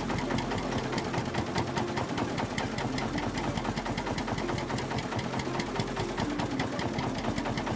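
Ursus tractor, a Lanz Bulldog copy, running its single-cylinder hot-bulb two-stroke engine at a steady low speed: a rapid, even knocking beat.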